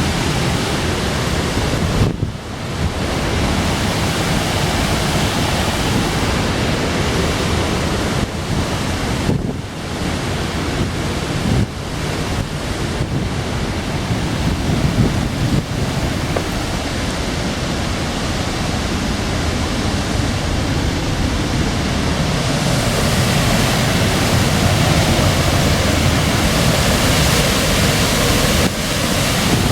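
Steady rush of a waterfall, a loud even wash of falling water, with a few brief dips and a slight swell in the second half.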